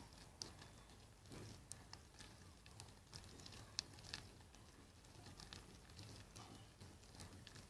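Faint, scattered small clicks and sticky squishes of glue slime being mixed in a bowl just after borax water has been added.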